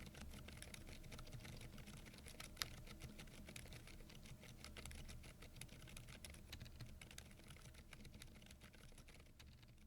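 Fast, steady typing on a Keychron V10 Pro Max mechanical keyboard with Keychron K Pro silent tactile 'banana' switches: a soft, dense patter of key clicks with one sharper click about two and a half seconds in, fading out near the end.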